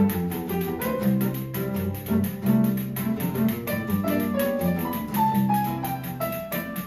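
Live acoustic choro trio: piano, seven-string guitar and pandeiro, with the pandeiro's jingles ticking out a steady beat under the piano melody.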